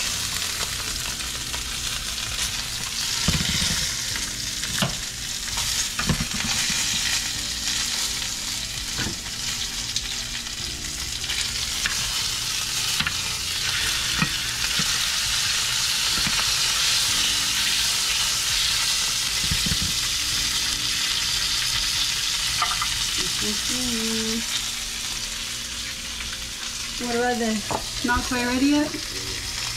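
Marinated yellowjack fillet searing in hot olive oil in a pan: a steady sizzle, with a few knocks scattered through it.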